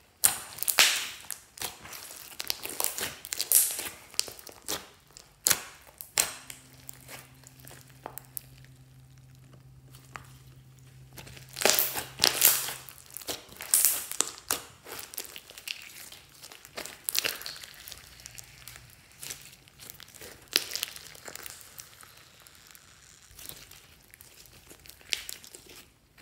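Glossy slime with beads mixed in being squeezed, pressed and stretched by hand, giving off dense, irregular wet crackles, clicks and pops as trapped air bursts. The crackling thins out for a few seconds near the middle, then picks up again.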